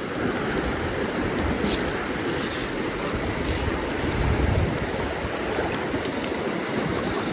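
Fast freestone river rushing over rocks in a riffle: a steady wash of moving water.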